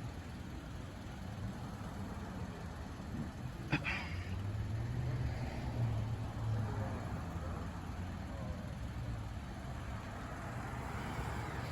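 A car engine idling with a steady low hum, and a single sharp click about four seconds in.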